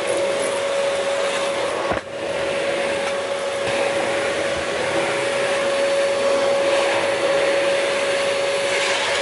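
Canister vacuum cleaner running steadily with a constant motor whine as its floor nozzle is pushed over the floor.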